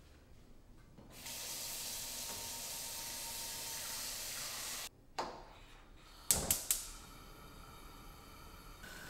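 Tap water running steadily from a kitchen faucet into an enamelled pot, cutting off suddenly about five seconds in. Then comes a quick run of sharp clicks and knocks at a gas range, followed by a faint steady hiss.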